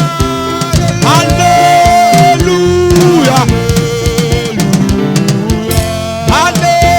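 Live gospel worship music: a band with drum kit and guitar plays under long held notes that slide up and down.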